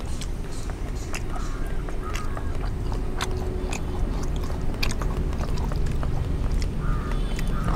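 People eating biryani: chewing with scattered small clicks and scrapes over a steady low rumble.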